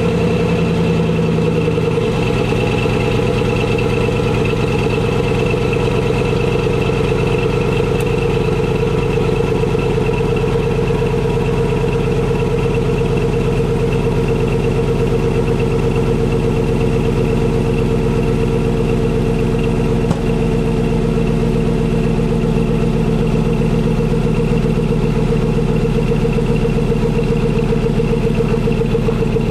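2002 Cadillac Escalade V8 idling just after a cold start, heard at the tailpipe. The idle note shifts slightly about two seconds in, then runs steady.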